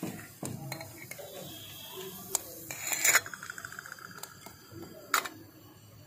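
Small steel lid put on a miniature metal pan over a wood fire: a loud clank about three seconds in that rings on for a moment, with lighter metal clinks before and after it.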